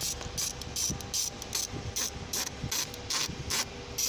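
Hand ratchet wrench on a socket extension working a bolt back and forth, with a short rasp of pawl clicks on each back-swing, about two or three a second.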